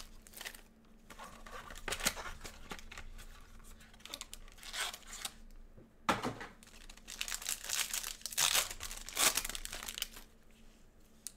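Plastic shrink wrap crinkling and tearing as it is stripped off a box of trading cards, then a foil card pack crinkling loudly as it is torn open and the cards are pulled out, from about six seconds in.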